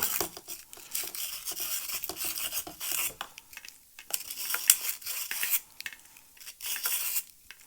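Small hard parts being handled at a workbench: a run of light clicks and scrapes, with one sharper click a little under five seconds in.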